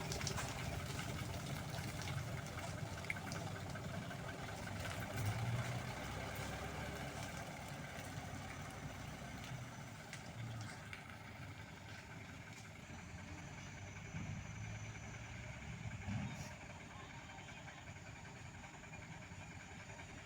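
Truck engine running with a low, noisy rumble and a few scattered knocks, slowly fading away.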